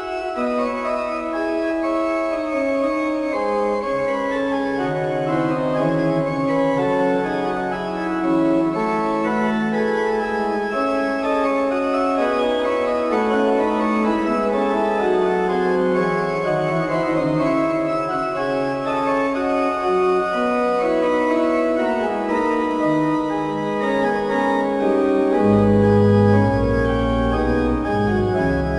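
Organ music of many sustained notes moving in slow, overlapping lines. A deep bass part enters near the end.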